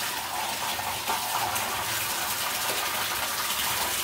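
A steady stream of water pouring and splashing into a plastic washbasin full of soaking clothes.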